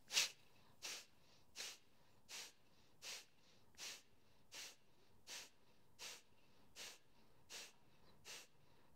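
A woman breathing in a steady rhythm of short, forceful exhales through the nose, about three every two seconds, with the belly pulling in on each one and quiet passive inhales between. The first puff is the loudest.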